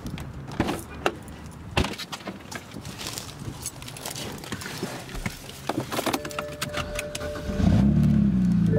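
Someone settling into a car: keys jangling and scattered clicks and knocks from the door and cabin. About six seconds in a steady two-tone chime begins, and near the end the engine starts with a brief rise and fall in revs, running loud and low.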